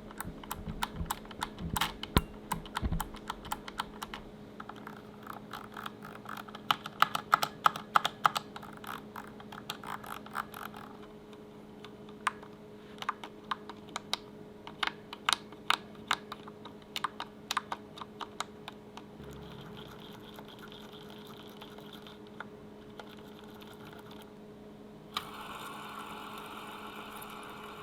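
Fidget keycaps on a keyboard being clicked and worked: irregular runs of sharp plastic clicks, with a dense rattling run in the middle. Near the end the clicks die away to faint sounds.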